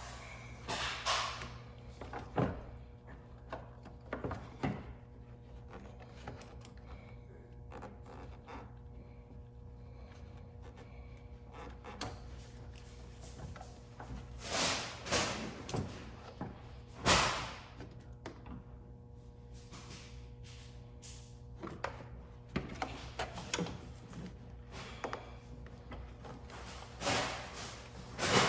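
Scattered plastic clicks, knocks and rustles from hands and a small screwdriver working at headlight wiring harness connectors to unclip them, over faint background music.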